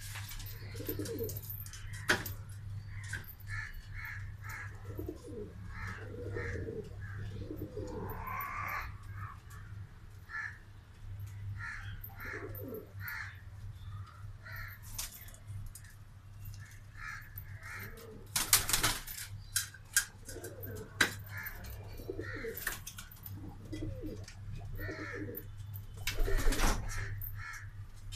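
Domestic pigeons cooing in a loft, repeated low rolling calls, with short higher bird chirps in between and a steady low hum underneath. Two brief loud bursts of noise break in, one past the middle and one near the end.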